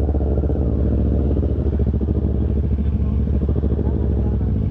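Motorcycle engine idling steadily, a low even rumble.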